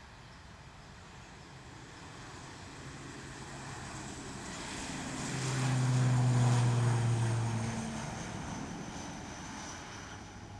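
ATR twin-turboprop airliner on its takeoff roll, passing close by. The propeller drone builds, is loudest about six seconds in, drops in pitch as the aircraft goes past, and then fades.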